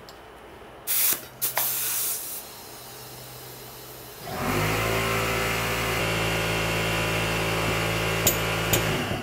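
Air chuck hissing in short bursts on the valve of a motorcycle front tyre. About four seconds in, an air compressor motor starts and runs steadily, stopping just before the end, with two sharp clicks near the end.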